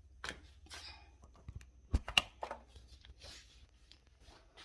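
Rustling and light knocking of kitchen items being handled, with two sharp knocks close together about two seconds in.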